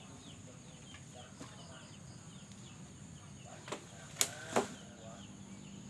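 Three sharp knocks or clicks close together a little past the middle, with faint short chirps of birds behind them.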